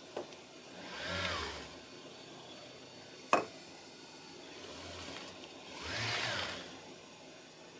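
Joint motors of a two-armed robot whining as the arms move, in swells whose pitch rises and falls, about a second in and again around six seconds. A single sharp click a little past three seconds in.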